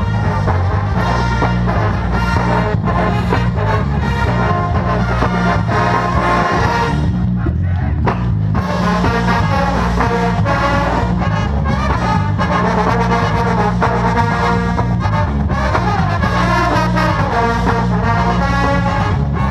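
Marching band playing, loud brass carrying the tune over a steady low drum pulse, with a brief break in the horns about seven seconds in.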